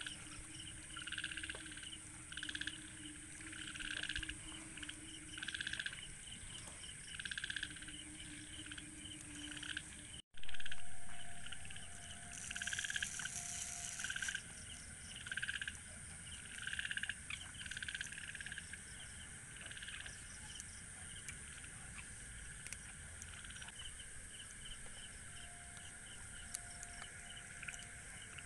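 Frogs calling over and over, a short pulsed call about every one and a half seconds, over a steady high trill of crickets. About a third of the way in the sound briefly swells louder and fades back over a couple of seconds.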